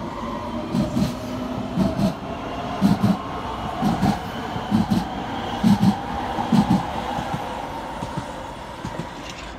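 GVB S1/S2 metro train pulling away, its wheels clacking over rail joints about once a second in paired beats over a steady motor whine. The sound fades near the end as the train draws off.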